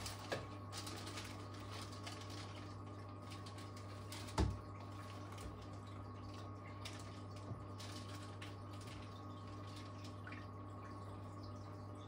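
Small water splashes and light taps as a fish is caught by hand out of a bucket of water, over the steady hum of the aquarium's pumps. One louder knock comes about four seconds in.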